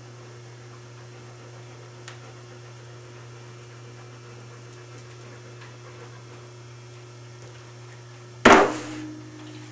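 Steady low electrical mains hum. About eight and a half seconds in comes a single loud, sudden sound that fades over about half a second.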